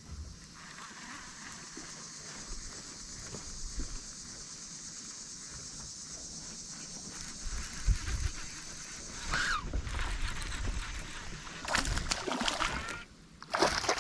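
Water splashing and sloshing at the side of a small fishing boat as a hooked bass is brought in, with several bursts of splashing in the last few seconds over a steady high hiss.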